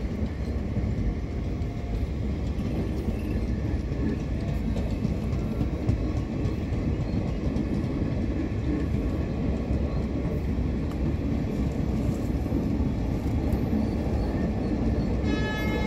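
Indian Railways sleeper-class passenger coaches rolling past at close range: a steady rumble of wheels on the track. Near the end a steady pitched tone comes in.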